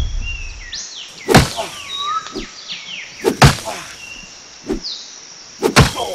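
Shin kicks striking a banana tree trunk: sharp thuds about two seconds apart, the last a quick double. Chirping birds call in the background.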